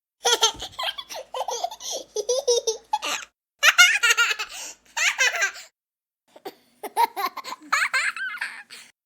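A young child laughing in three bouts of rapid giggles, with short pauses between them.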